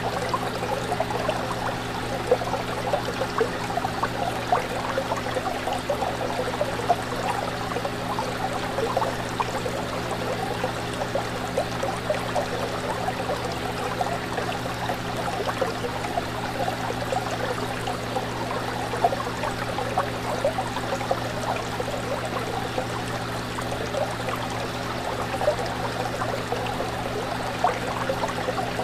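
Aquarium water bubbling and trickling steadily, with many small splashes, over a low steady hum.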